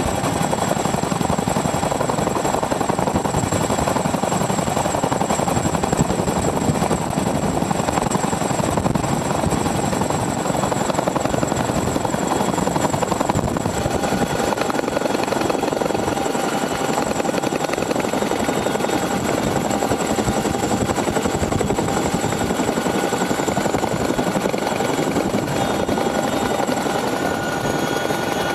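CH-47 Chinook tandem-rotor helicopter running at hover with an underslung vehicle load, a steady, dense rotor and turbine noise. About halfway through the sound shifts, and a steady whine runs over the rotor noise from then on.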